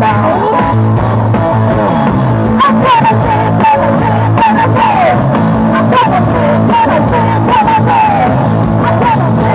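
Live punk blues rock band playing loud: electric guitar and drums, with a woman singing over them.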